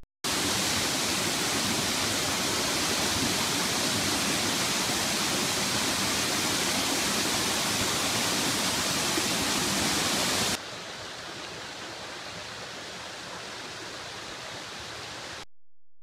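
Steady rush of a tall waterfall crashing into a pool. About ten seconds in it drops abruptly to a quieter, duller rush.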